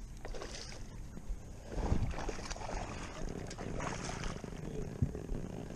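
Water splashing and knocking around a bass boat as a hooked largemouth bass is fought to the side and landed, with a heavier thump about two seconds in and a sharp knock near the end.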